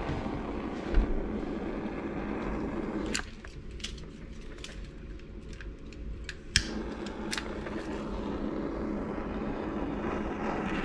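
Butane kitchen torch flame hissing steadily. About three seconds in it stops, leaving a few faint ticks, and about three seconds later it comes back on with a sharp click.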